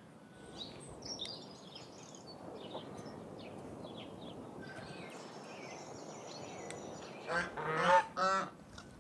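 Domestic geese honking: a loud burst of about three honks near the end. Faint small-bird chirps come before it.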